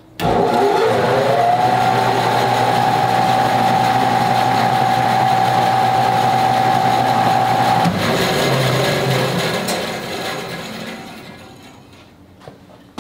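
A 14-inch bandsaw is switched on with a freshly fitted blade, test-run to check the blade's tracking. Its motor whines up to speed over about a second and a half and runs steadily. It is switched off about eight seconds in, and the wheels and blade coast down quietly to a stop.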